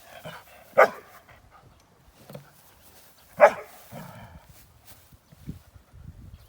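A dog barks twice, two single sharp barks about two and a half seconds apart.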